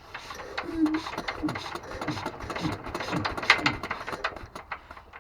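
Petter AS stationary petrol engine being turned over by hand without firing, a rhythmic mechanical clatter with falling whirs about twice a second. It gives not even a pop: the engine will not start.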